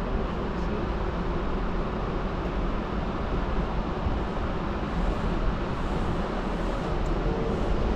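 Steady rumble and running noise of a moving train, with no change in pitch or level.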